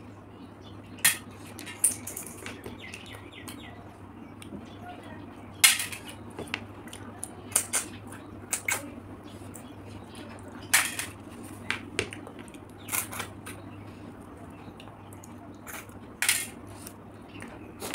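Close-up eating of fried river snails: about a dozen short, sharp clicks and smacks at irregular intervals as the shells are handled and the meat is picked out with a toothpick and eaten.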